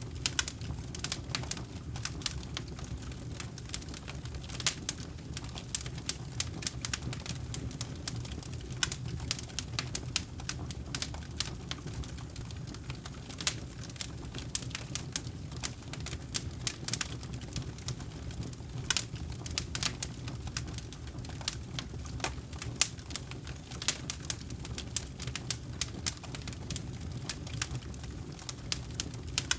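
Wood campfire burning: a steady low rush of flames with frequent, irregular sharp crackles and pops from the burning logs.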